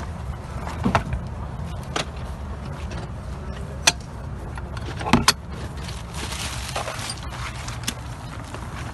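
Scattered clicks, knocks and clinks of hard objects being handled and shifted about while rummaging through clutter, with a short rustle in the middle, over a steady low hum.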